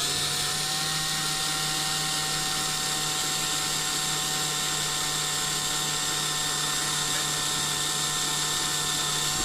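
Small power drill running steadily at constant speed for about nine seconds, drilling out the rivet of a die-cast toy car to free its base. It starts and cuts off suddenly.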